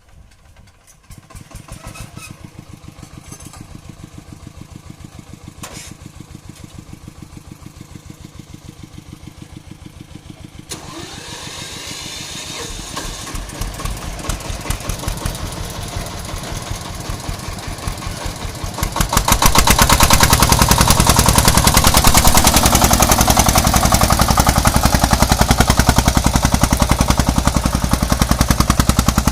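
A small farm engine starts about a second in and runs with an even, rapid pulse. It picks up a little past ten seconds in, then is opened up much louder about two-thirds of the way through.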